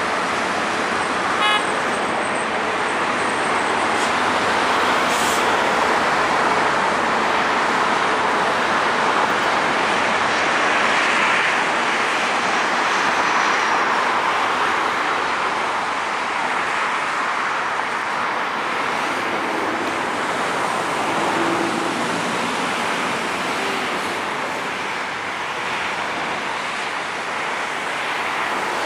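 Boeing 737-800 airliner with its CFM56-7B turbofans landing: a steady jet rush that swells a little around the middle and eases later on, mixed with road traffic noise.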